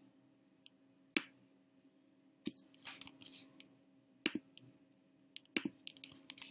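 Scattered clicks of a computer mouse and keyboard: about five sharp single clicks a second or so apart, with a few fainter ones between, over a faint steady hum.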